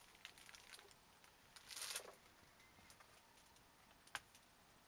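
Near silence inside a small enclosed space, broken by faint rustles and small clicks from someone moving about and handling the camera. A louder rustle lasts about half a second around two seconds in, and a single sharp click comes near the end.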